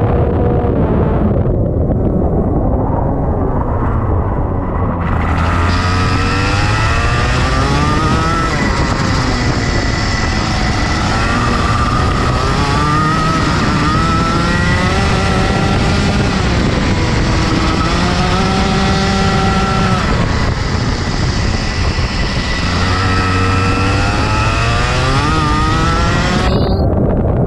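Rotax Max 125 cc two-stroke kart engine heard from on board, revving up along the straights and dropping off into the corners, over and over through the lap.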